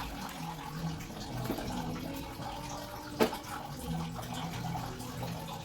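Water running steadily, with one sharp click a little over halfway through.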